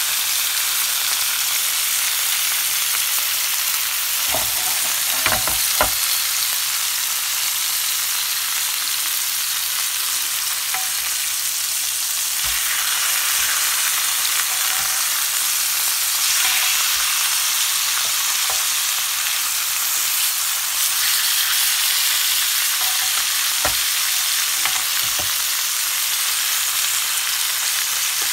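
Pork chops sizzling steadily in a hot grill pan, with a few light knocks of tongs against the pan as the meat is turned: a cluster of knocks about four to six seconds in and single ones later.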